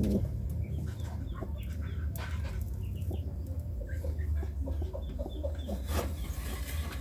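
Pigeons cooing in courtship, with many short clucking calls, and two sharp knocks, about two seconds in and near the end.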